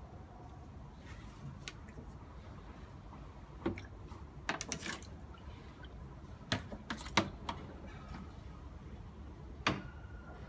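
Short splashes and knocks of water in a shallow plastic tub, made by a snapping turtle moving about, in several brief clusters a few seconds apart. A faint, steady low hum lies underneath.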